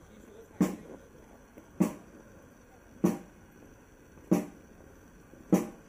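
A marching drum struck on its own in a slow, even beat, five single strokes about a second and a quarter apart, keeping the marching step.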